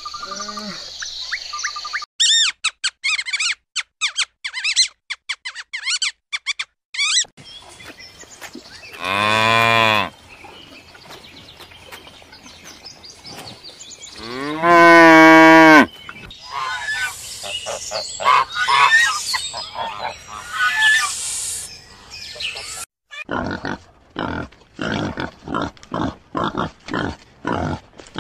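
Cattle mooing: two long moos, the second the loudest, after a quick run of short clicks in the first few seconds. Near the end a herd of pigs starts grunting in short, regular grunts, about two a second.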